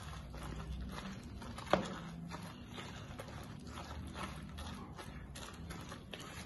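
Grated raw potato, egg and herbs being mixed and squeezed by hand in a bowl: a run of soft, irregular strokes, with one sharper tap a little under two seconds in.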